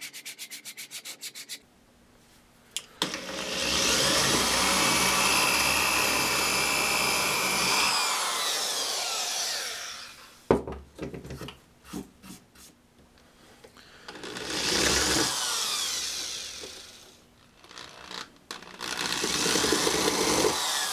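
Sandpaper rubbed back and forth by hand on a wooden push stick for the first second or so. Then a corded DeWalt drill bores into the wood in three runs, the first about five seconds long, with sharp knocks from clamps and handling in between.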